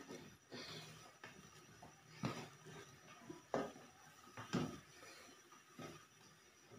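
Grated carrots being swept by hand off a melamine tray into a metal pot: quiet rustling and soft plops of the shreds, with a light knock about once a second from the tray and hand against the pot.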